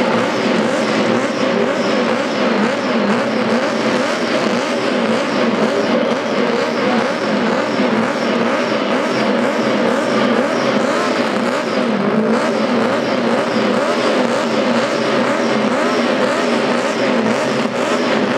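McLaren Honda MP4/4's 1.5-litre turbocharged Honda V6 running while the car stands still, a steady loud engine note whose pitch wavers slightly.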